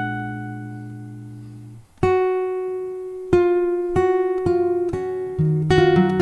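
Classical guitar played solo: a chord rings out and fades over almost two seconds, then after a brief pause single notes are picked one at a time, quickening into a busier passage with bass notes near the end.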